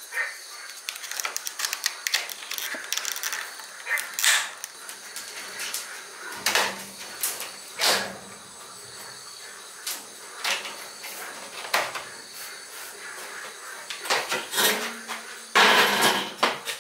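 Hands-on work noises: scattered clicks and light knocks with short scrapes, as tools and materials are handled, and a louder rustling scrape shortly before the end.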